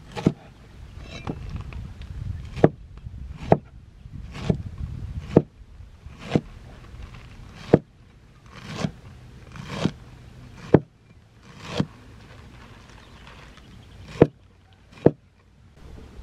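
Repeated chopping strikes, roughly one a second, each sharp and sudden, with a short pause a little after the middle before two final strikes.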